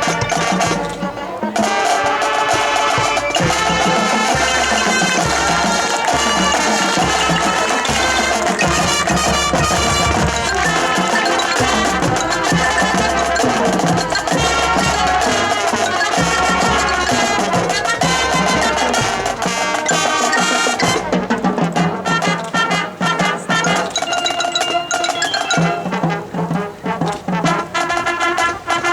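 High school marching band of brass and percussion playing its field show, full brass chords over drums. About 21 seconds in the sound thins out and the percussion comes forward in choppier hits.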